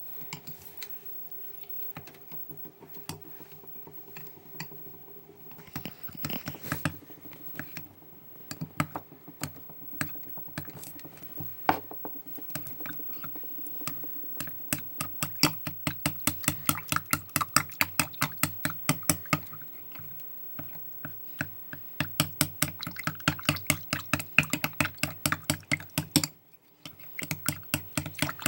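A utensil stirring a glue-and-water mixture in a mixing bowl, knocking against the bowl. Scattered knocks at first, then quick, regular strokes from about halfway, with a brief stop near the end.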